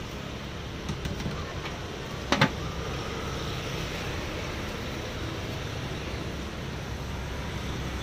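Steady street traffic noise from passing vehicles, with a few faint clicks about a second in and two sharp knocks close together about two and a half seconds in.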